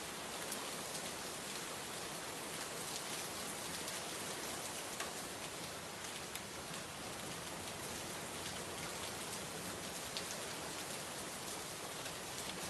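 Steady rain falling, an even hiss with scattered individual drops pattering on a surface.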